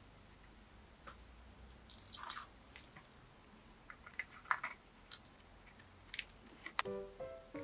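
Thin clear plastic candy bag crinkling and clicking in the fingers as small resin gummy pieces are pushed inside, in short scattered crackles. Piano music comes in near the end.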